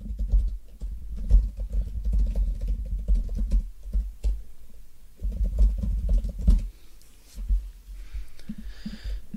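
Typing on a computer keyboard in quick bursts, each keystroke a dull thump with a light click, pausing about four seconds in and again for most of the last two seconds.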